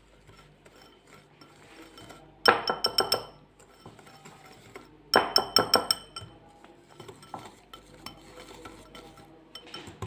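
A kitchen utensil clinking rapidly against a mixing bowl in two short bursts about two and a half seconds apart, each a quick run of ringing strikes, while butter and powdered sugar are being mixed.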